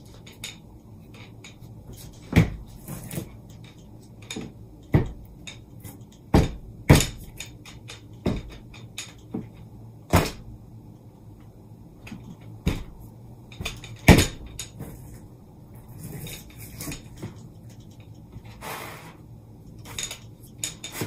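Irregular knocks and clacks of painting supplies being picked up and set down on a tabletop, including a plastic paint tray and a cup of brushes, with a brief rustle near the end.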